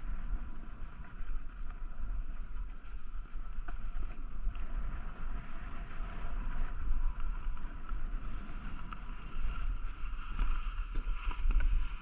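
Gusty wind buffeting the microphone while riding downhill, over the steady hiss of a snowboard sliding on groomed snow.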